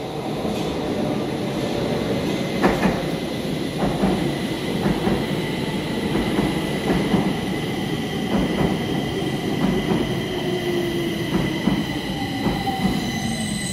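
Stockholm metro train pulling into an underground station and braking: a steady rumble with repeated clacks of the wheels over rail joints and a steady high whine, and a lower tone that falls in pitch as the train slows near the end.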